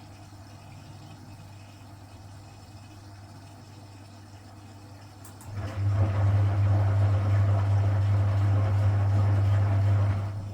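Vintage Frigidaire Super Deluxe Automatic 50 front-loading washing machine with a steady low mains hum. About five and a half seconds in, the hum gets much louder and water rushes through the machine for about four seconds, then both cut back.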